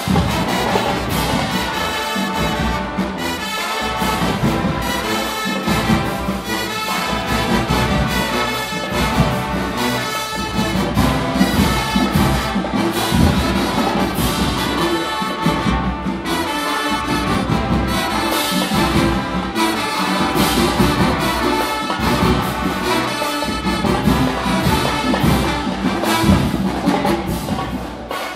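Marching band playing, with the brass section carrying the tune over percussion that strikes out a steady beat.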